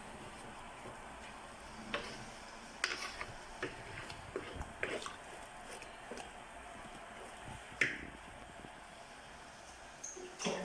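Spoon stirring a thick onion filling in a cooking pot, with scattered clicks and scrapes of the spoon against the pot, the sharpest about eight seconds in. The filling is being stirred to cook off its liquid until it is dry.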